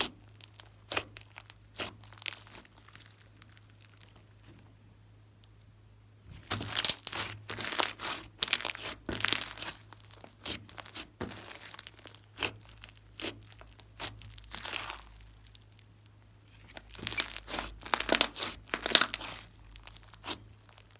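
Hands squishing, stretching and folding glossy slime, making quick irregular crackling pops. The sounds come in two busier bouts, one about a third of the way in and one near the end, with quieter stretches between.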